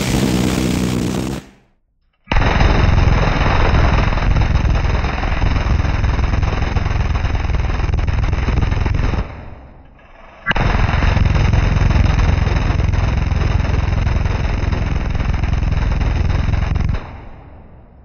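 Battery-powered six-barrel M134 Minigun firing long continuous bursts. A short one ends about a second and a half in, then come two long bursts of about seven and six seconds. Each cuts off suddenly and dies away in a short echo.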